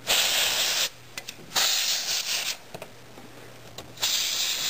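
Three blasts of compressed air from a can of air duster, each about a second long, blowing dust out of a desktop computer's floppy drive slot.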